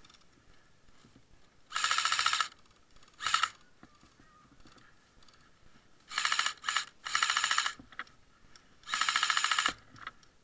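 Airsoft electric rifle firing full-auto, about six short bursts of rapid clicking shots, each under a second.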